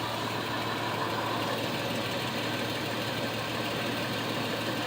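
Toyota pickup truck engine idling steadily.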